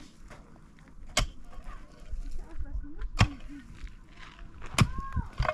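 Pick striking rocky, stony ground in slow repeated blows, three sharp strikes about two seconds apart with smaller knocks of loosened stones between.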